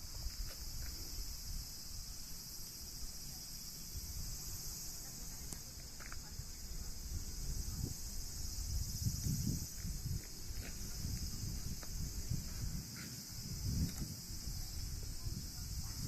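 Steady high-pitched chorus of insects chirring, over a low uneven rumble.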